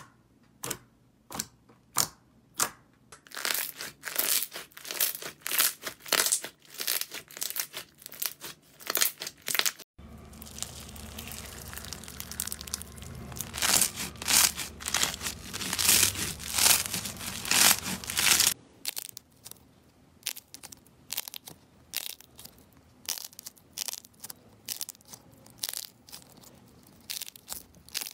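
Hands pressing and squeezing slime, giving a run of quick sticky pops and crackles, several a second. The sound changes about ten seconds in, when it turns louder and denser over a low steady hum, and again about two-thirds of the way through, when it drops back to sparser, softer pops.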